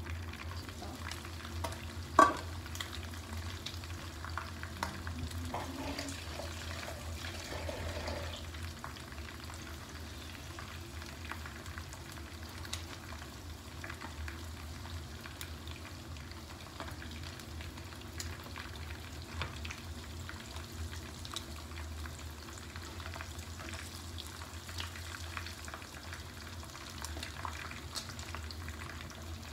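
Fish frying in hot oil in a pan, a steady sizzle full of small crackles and pops, over a low steady hum. A single sharp clank rings out about two seconds in.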